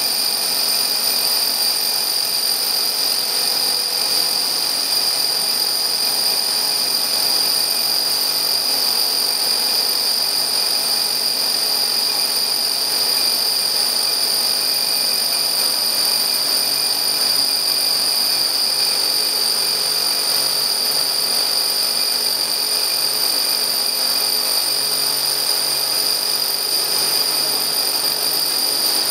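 Three heavy rotary hammers (SIMKO SR890-52MA, DeWalt D25700 and Bosch GBH 8-45 DV) running together, core drilling 110 mm holes into a concrete wall. They make a loud, steady mechanical din with a high whine on top.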